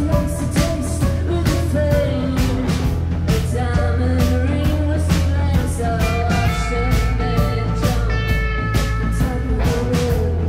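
A rock band playing live: drum kit keeping a steady beat under electric guitars, bass and a bowed viola.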